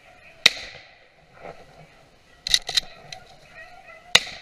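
Two sharp shotgun shots, one about half a second in and one near the end, with a quick run of smaller cracks between them.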